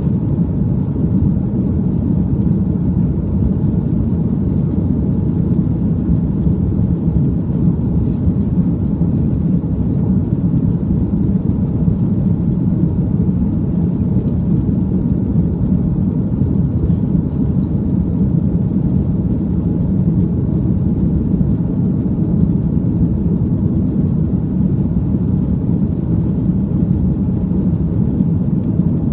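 Jet airliner cabin noise during the climb after takeoff: a steady low rumble of engines and airflow heard from inside the cabin.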